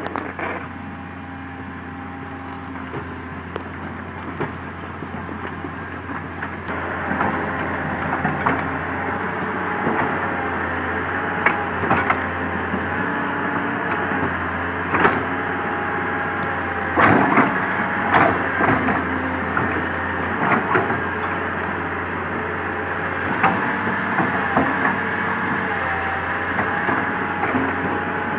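Komatsu PC200 hydraulic excavator working: its diesel engine running under load with a wavering hydraulic whine, getting louder about a quarter of the way in. Scattered cracks and knocks as the bucket digs into the ground.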